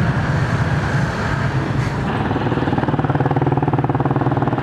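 Small engine of a passing motorcycle-sidecar tricycle running, over steady street traffic noise; its pulsing engine note comes through more clearly about two seconds in.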